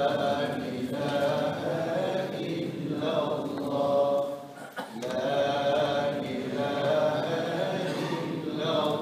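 Men's voices of a mosque congregation chanting dhikr in unison during tesbihat, the prayer-bead recitation after the night prayer. The chant pauses briefly about halfway through and then resumes.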